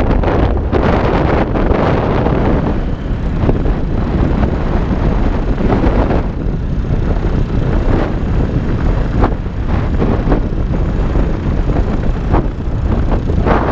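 Steady wind noise buffeting the microphone of a camera riding on a moving motorcycle, with the motorcycle's running engine underneath.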